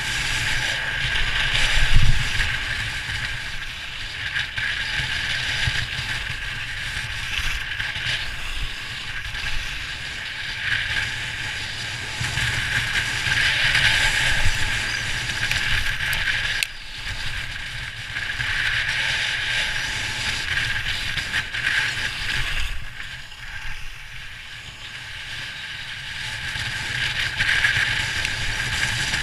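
Edges carving and scraping down a groomed slope of packed snow, a continuous hiss that swells and eases with each turn, with wind rumble on the microphone.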